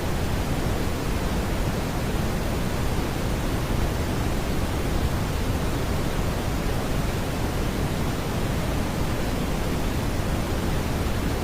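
Steady synthetic brown noise: an even, unchanging hiss weighted heavily toward the low end, with no tones or beats in it.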